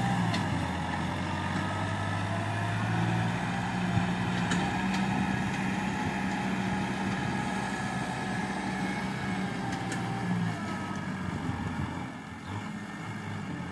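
Kubota M6040 tractor's diesel engine working under load as it pushes soil with its front blade and drags a disc harrow, with a few sharp clicks. The engine note drops about ten seconds in, and the sound grows fainter near the end as the tractor moves off.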